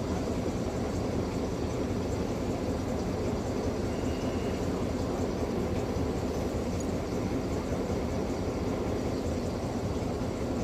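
Passenger train running slowly out of a station, heard from an open carriage window: a steady rumble of the running gear and the moving air. A faint, brief high tone comes about four seconds in.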